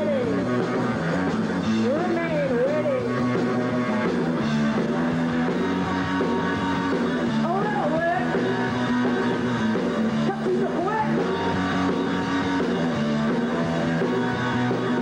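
Live punk rock band playing: electric guitar and drums in a steady, dense wall of sound, with a few short sliding notes over the top.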